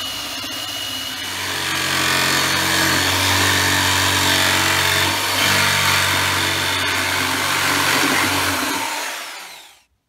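A cordless drill boring into exhaust gasket sheet, then an electric jigsaw running as it cuts a gasket out of the sheet, louder from about a second in and stopping just before the end.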